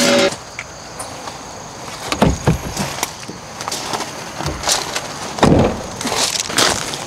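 A series of irregular knocks and thumps with rustling between them; the loudest knock comes right at the start.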